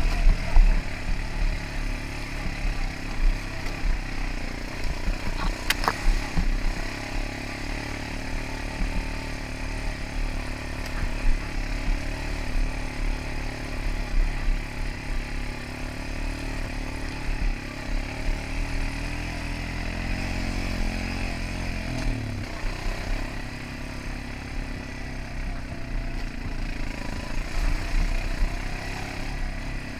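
ATV engine running under way over a rocky gravel trail, its note rising and falling with the throttle, with a sharp knock about six seconds in.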